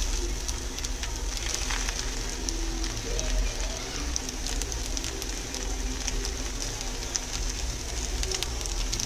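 Stir-fried noodles sizzling in an iron kadai while a wooden spatula tosses them, with many small scrapes and clicks against the pan over a steady low hum.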